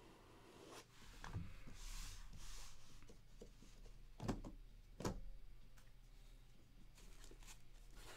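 An aluminium card briefcase being handled on a table: soft rubbing and sliding, then two sharp metal clicks less than a second apart as its latches snap open.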